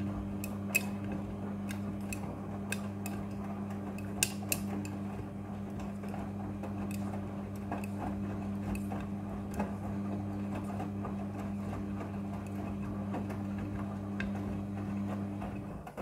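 Midea front-loading washing machine tumbling a load of clothes during the wash: a steady motor hum with scattered light clicks and clinks as the load knocks against the drum.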